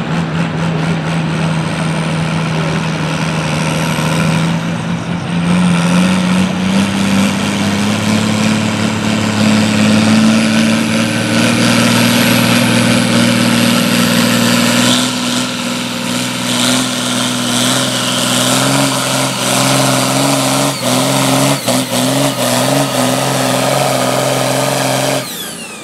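John Deere farm tractor's diesel engine running hard under load while pulling a weight-transfer sled. The pitch climbs slowly, then wavers and pulses over the last several seconds before the sound cuts off suddenly near the end.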